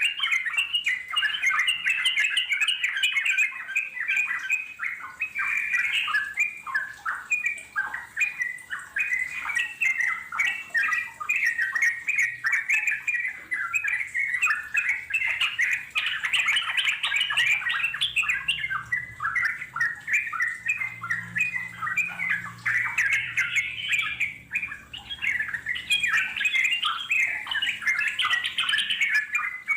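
Wild yellow-vented bulbul (trucuk) calls: a dense, unbroken run of quick, bubbling chattering notes.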